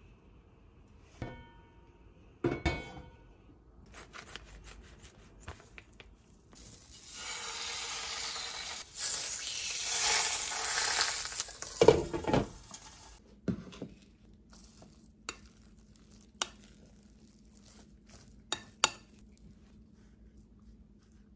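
Mackerel fillets frying in hot oil in a beige ceramic-coated frying pan. The sizzling starts about six seconds in, gets louder, and dies away after about twelve seconds. Scattered knocks and clinks of the pan and utensils come before and after it.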